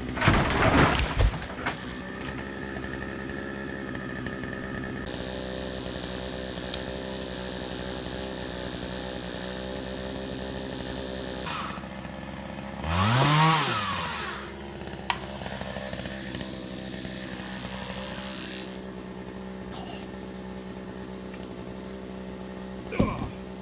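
Chainsaw engine idling steadily, opened up briefly at the start and again about halfway through, its pitch rising and then falling back to idle. A few short sharp knocks come near the middle and the end.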